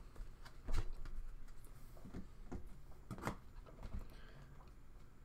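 Faint handling noise of trading cards being flipped through by hand: soft slides and a few short clicks as cards move against each other, the loudest about a second in and again about three seconds in.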